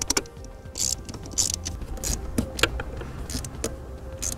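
Wrench tightening nuts on a metal mounting plate: irregular metal clicks and several short ratcheting rasps.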